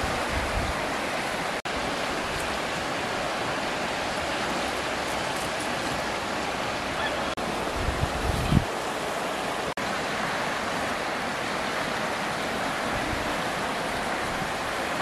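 Steady rushing noise, with a few low thumps about eight seconds in and two instant dropouts.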